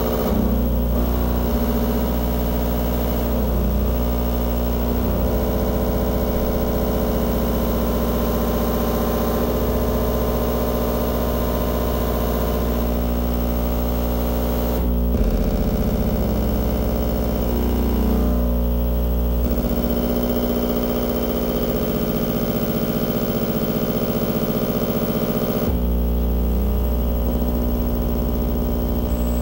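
Loud experimental electronic noise from a video-feedback rig: a dense drone of many steady buzzing tones over a deep hum. It shifts abruptly about halfway through and again later, the bass thinning out for several seconds before coming back.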